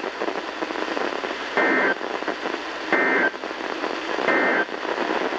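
EAS end-of-message data tones from NOAA Weather Radio, heard through a weather radio's speaker over a steady radio hiss. They come as three short, identical bursts of warbling two-tone data, about a second and a half apart, which signal the end of the alert message.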